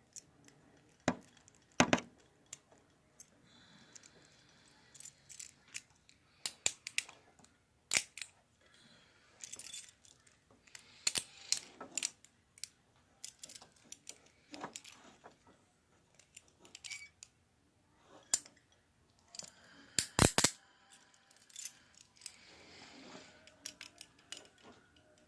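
Metal handcuffs and a small homemade key, bent from a circuit-board clip, clicking and jangling as they are handled and worked. Scattered sharp clicks, with a couple of denser bursts of clatter.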